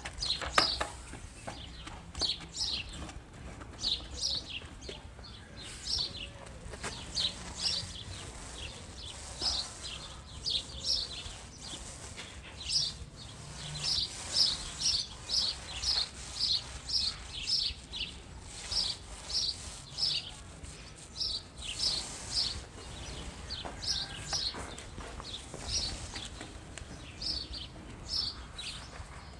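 Paint roller on an extension pole squeaking rhythmically as it is rolled up and down the wall laying on waterproofing paint: about two to three short high squeaks a second, one on each stroke.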